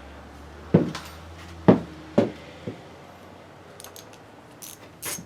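Metal winch parts and tools being handled: four sharp knocks and clinks, then lighter ticks near the end.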